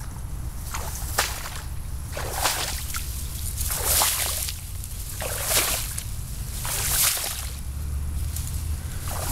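Footsteps wading through tall meadow grass: a swish of stalks brushing against the legs with each stride, about one every second and a half.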